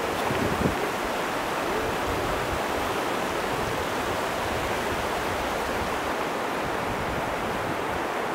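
Steady rushing of a mountain stream flowing over stones and gravel, an even hiss with no change in level.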